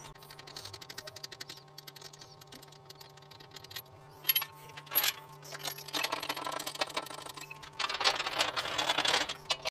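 Light metallic clicking and jingling from an engine crane and its load as a motor is manoeuvred into a car's engine bay, with two sharper clanks about halfway through. Two stretches of scraping noise follow in the second half.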